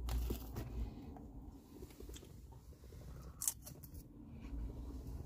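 Plastic fork scraping and clicking against food in a cardboard takeaway box: a few small clicks at the start and a sharper click about three and a half seconds in.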